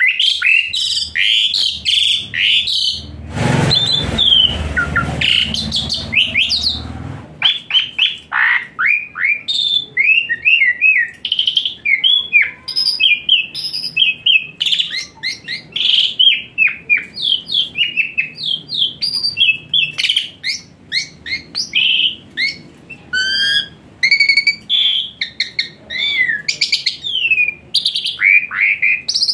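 Asian pied starling (jalak suren) singing a long, varied song of quick whistles, gliding chirps and harsh notes. A rough, noisy stretch runs from about three to seven seconds in.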